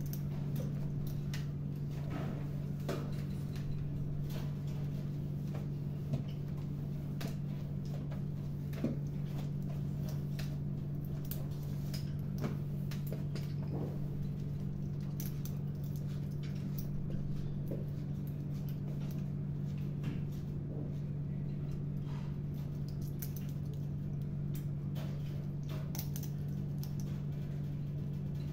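African grey parrot climbing about its cage and chewing on its toys: scattered small clicks, taps and scratches of beak and feet, over a steady low hum.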